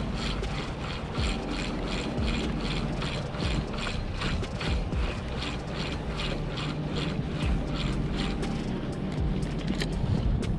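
Shimano Stradic spinning reel being cranked to work a jig, giving an even mechanical clicking of about three strokes a second, over a steady low rumble.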